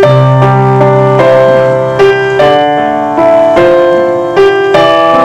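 Electronic keyboard played in a slow, gentle style: chords and single notes struck about once a second or faster, each left to ring and overlap with the next.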